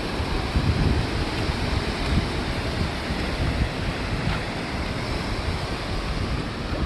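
Ocean surf washing steadily onto the beach, with wind buffeting the microphone in low gusts.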